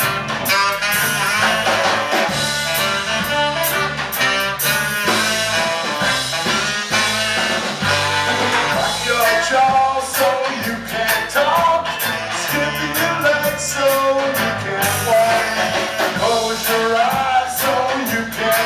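Live band playing a song, with fiddle and saxophone lines over electric guitar and a steady drum kit beat.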